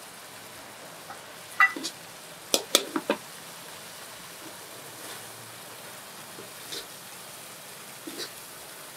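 Prawn curry sizzling in a wok while a metal ladle stirs it, scraping and clanking against the wok; a sharp clank about a second and a half in and a quick run of three or four near three seconds in are the loudest.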